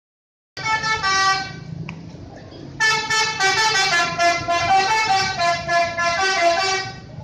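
Telolet musical bus horn on a Garuda Mas bus playing multi-note tunes: a short phrase of stepping notes, a brief pause over the low sound of the engine, then a longer melody of quickly changing notes.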